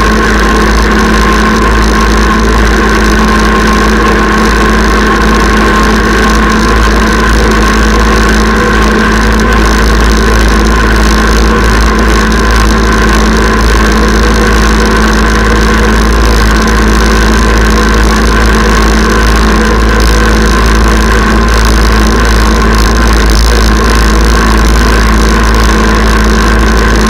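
Kubota tractor's diesel engine running steadily at constant speed while it pulls a chain harrow, with a loud deep rumble and a steady hum.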